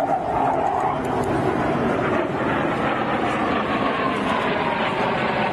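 Blue Angels F/A-18 Hornet jet flying by overhead, its engine noise steady and continuous. In the second half a whine slowly falls in pitch as the jet moves past.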